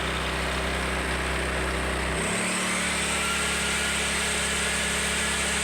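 Small inverter generator's engine running steadily in economy mode, then stepping up to a higher speed about two seconds in as the circular saw's load comes on, with a high motor whine joining it.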